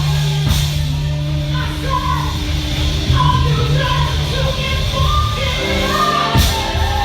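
Live R&B performance: a singer's voice over a band with steady bass notes, with sharp drum or cymbal hits about half a second in and again near the end.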